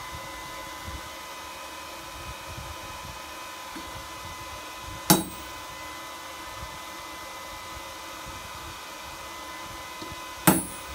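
Two hammer blows on a steel touch-mark stamp held against a hot bottle opener on the anvil, about five seconds apart, the second near the end, each with a short metallic ring. A steady mechanical hum runs underneath.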